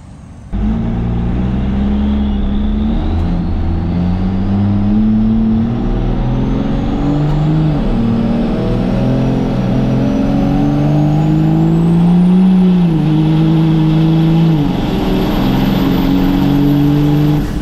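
First-generation Dodge Cummins 5.9-litre inline-six turbo diesel accelerating hard under load. Its pitch climbs and drops back at each gear change, about three times, over a thin high whine that rises steadily.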